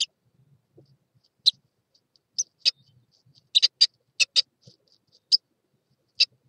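Irregular short, sharp clicks and taps, some in quick pairs, from an adult blue tit moving over the nest of newly hatched chicks inside a wooden nest box, with faint rustling of the nest material in between.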